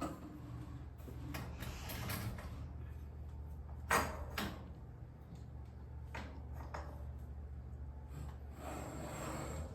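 Garage door spring hardware being handled and fitted back in place: scattered metal clicks and knocks, one sharper knock about four seconds in, and a scraping slide near the end, over a steady low hum.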